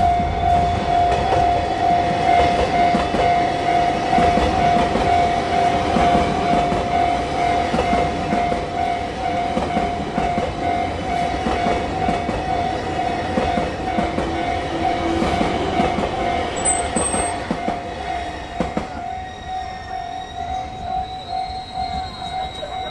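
Japanese level-crossing warning bell ringing steadily with its repeating electronic ding while a train rumbles over the crossing with clattering wheels. The train noise fades over the last several seconds, with a brief high squeal about two-thirds of the way through.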